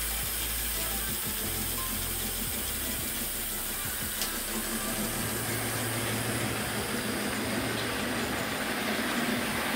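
Hornby 00-gauge Smokey Joe model locomotive running along the track with its train: a steady whir from the small electric motor and wheels on rail, with a high hiss and a few faint ticks.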